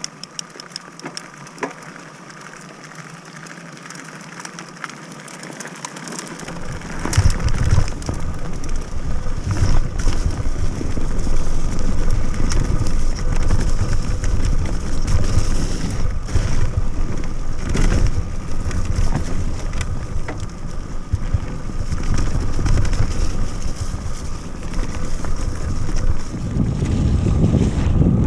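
Mountain bike riding fast down a dirt forest trail: wind buffeting the camera microphone, tyres crunching over the dirt, and the bike knocking and rattling over bumps. The wind rumble gets much louder about six seconds in.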